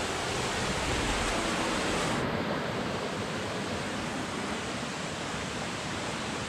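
Small stream running over rocks: a steady rushing hiss of water. About two seconds in, the highest part of the hiss drops away suddenly and the sound turns slightly duller.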